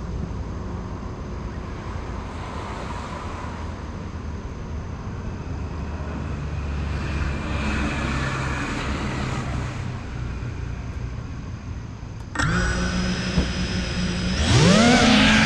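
Road traffic in the background, with a vehicle passing about halfway through. About three-quarters of the way in, the motors of a GEPRC CineLog35 cinewhoop drone start suddenly and idle with a steady whine, then near the end rise sharply in pitch and loudness as it throttles up to take off.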